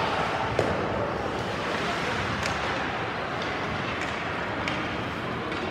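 Ice hockey arena during play: a steady wash of rink and crowd noise with a few sharp clacks of sticks and puck on the ice.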